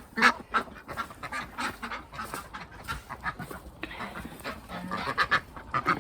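Domestic geese honking, with ducks calling among them, in a run of short calls one after another.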